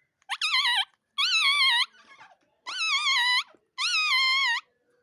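Pet parrot giving four drawn-out, wavering high-pitched calls, one after another with short gaps.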